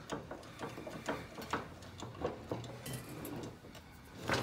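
Irregular light metallic clicks and knocks from an old J.H. Williams wrench being worked by hand in a bench vise. Its adjusting screw is seized with rust and does not move freely.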